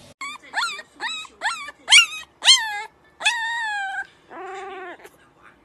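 Husky puppy yowling: about six short, sharply rising yips in quick succession, then a longer drawn-out howl and a lower, shorter call near the end.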